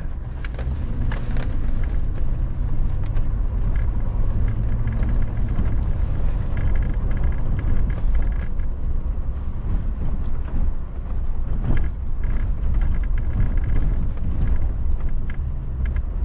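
Truck driving over a rough rocky dirt trail: a steady low engine and road rumble, with scattered knocks and rattles from stones and bumps under the tyres.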